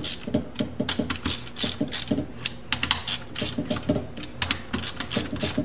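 A hand ratchet clicking rapidly in short runs as the main bolts of a Honda CB750 crankcase are turned down snug but not yet torqued.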